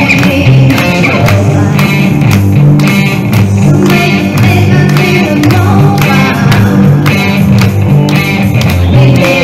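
Live rock song: a vocalist singing into a microphone and an electric guitar playing over a steady drum and bass beat, heard through amplified stage speakers.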